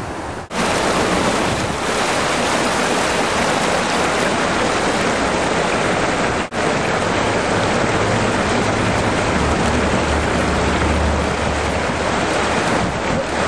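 A steady, loud rushing noise of the kind wind or moving water makes, with two sharp brief dropouts, about half a second in and about six and a half seconds in. A low hum joins in for a few seconds past the middle.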